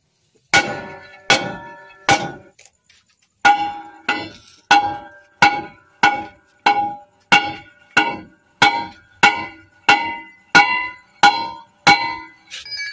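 Hammer striking the steel wheel hub of a Howo dump truck to knock out its broken stud bolts, each blow a ringing metallic clang. Three blows, a short pause, then a steady run of blows about one and a half a second.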